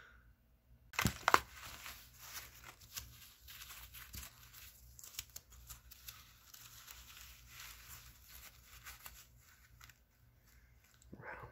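Plastic packaging wrap being crinkled and torn off by hand to unwrap a graphite mold, with one sharp loud crackle about a second in and then irregular crinkling.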